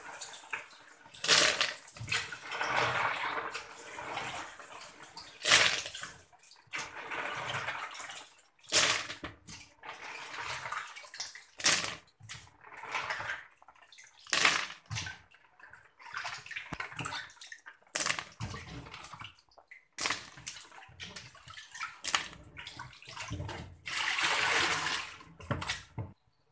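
Water splashing and sloshing as small black siput sedut snails are washed by hand in a basin of water under a running tap, in irregular surges with sharp clatters between them.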